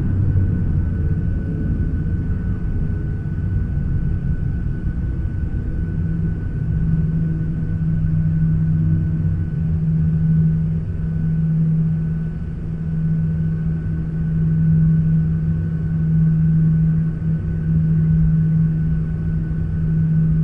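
Airliner noise heard from inside the cabin: a steady, loud low rumble from the engines and airflow, with a steady hum that grows stronger about six seconds in.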